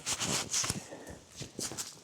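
Footsteps of a person walking outdoors, irregular steps with rustling, louder in the first second.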